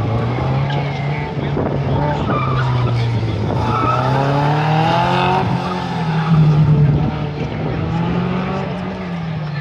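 Subaru Impreza's engine revving up and down as it is driven hard through tight turns, with tyres squealing and skidding. The revs climb about four seconds in and the engine is loudest a couple of seconds later.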